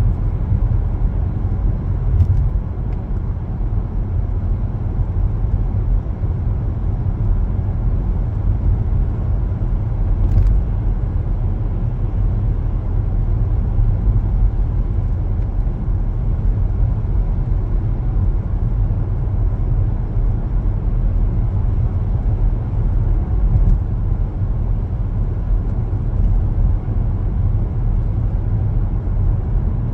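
A car driving along city roads, its engine and tyres making a steady low rumble.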